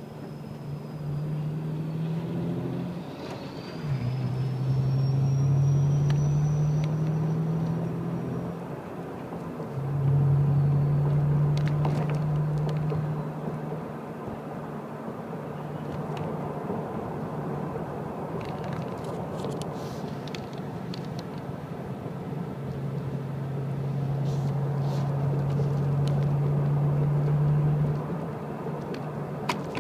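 A car driving, heard from inside: engine drone and road rumble, the drone swelling in several stretches and rising slightly in pitch within them. A few faint clicks in the second half.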